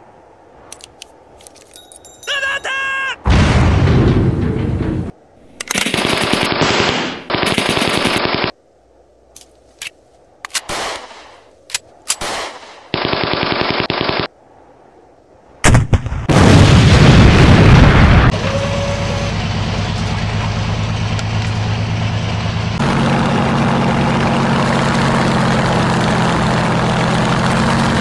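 Sound-effect gunfire: several bursts of rapid machine-gun fire with single shots between them, and a short whine near the start. About halfway through comes a loud blast, and it gives way to a propeller aircraft engine running steadily, which grows louder about two-thirds of the way in.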